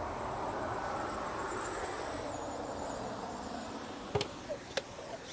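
Steady hiss of a pump garden sprayer spraying cleaning solution, easing off about four seconds in, followed by two sharp clicks.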